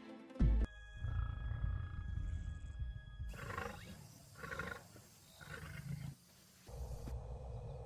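A deep, loud boom about half a second in, then low rumbling and three growling roars about a second apart, over faint music.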